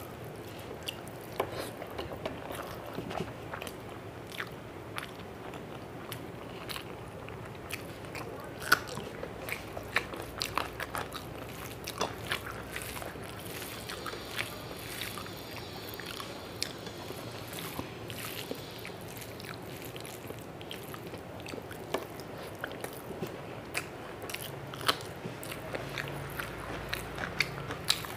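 Close-miked eating by hand: a person chewing mouthfuls of rice and spinach, with irregular small wet clicks and smacks, while fingers mix rice on a plate.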